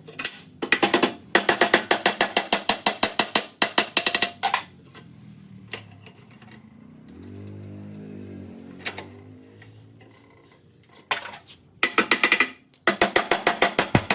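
Drill-driven home-made sheet-metal shears chopping through corrugated iron: fast, even clicking in bursts of one to two seconds, stopping and starting several times, with a lower hum in the pause midway.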